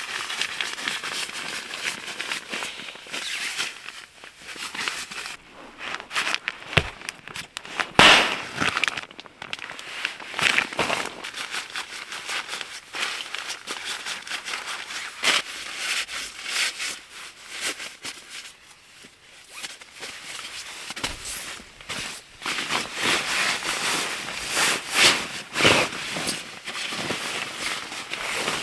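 Wood campfire crackling, with irregular sharp pops; the loudest come about 8 seconds in and again near the end.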